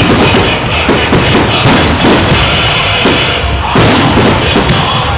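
Firework shells bursting in quick succession, crackling and banging over loud music with a heavy drum beat.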